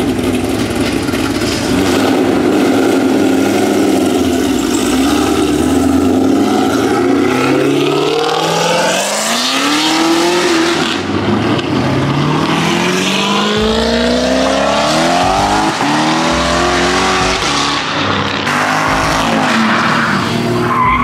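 A Chevrolet Camaro's engine runs steadily for several seconds, then revs hard again and again in rising sweeps as the car spins its tyres in a smoky burnout.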